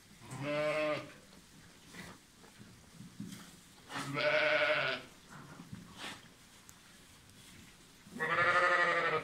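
Zwartbles sheep bleating in a barn: three separate bleats, each about a second long and wavering, roughly four seconds apart.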